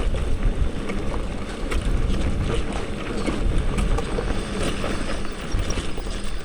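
Wind buffeting the microphone over a touring bicycle rolling on a dirt road, with scattered small clicks and rattles.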